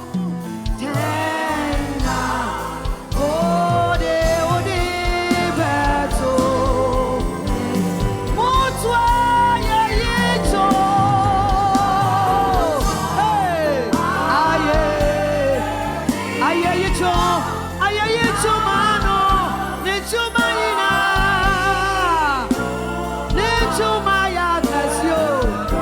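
Gospel worship song: lead vocals singing with vibrato over a band with bass and a steady beat.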